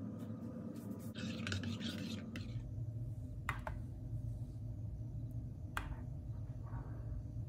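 A metal spoon stirring thick batter in a bowl, with two short sharp clinks of the spoon against the bowl. Shortly before the stirring, about a second in, comes a scraping rustle that lasts about a second. A steady low hum runs underneath.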